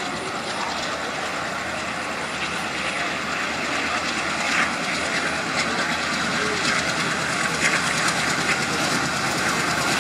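WDP3A diesel locomotive hauling a passenger train, running under power as it approaches and growing steadily louder, with wheels clicking over rail joints from about halfway in.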